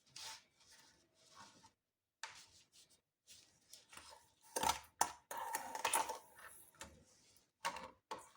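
Kitchen utensils knocking and clinking in irregular strokes, with a louder clatter about halfway through.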